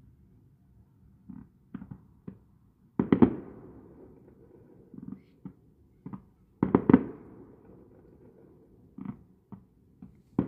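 Distant aerial fireworks bursting: a few small scattered pops, and two clusters of loud bangs about three and about seven seconds in, each trailing off in a rolling rumble.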